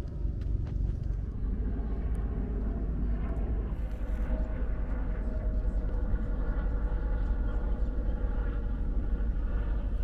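Wind buffeting the microphone in a steady low rumble, with a faint steady pitched drone joining about three seconds in.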